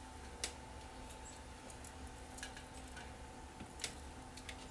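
Small clicks and light scraping as a TV picture tube's deflection yoke is handled and shifted on the tube neck, with a sharper click about half a second in and another near the end, over a faint steady hum.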